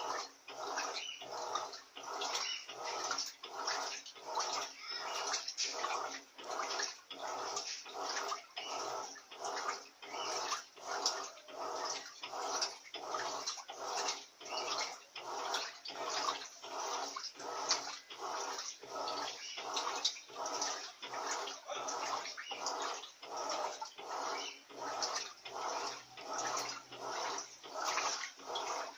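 Electrolux Silent Control 16 kg top-loading washing machine agitating a duvet load: water sloshing back and forth in an even rhythm of roughly two strokes a second.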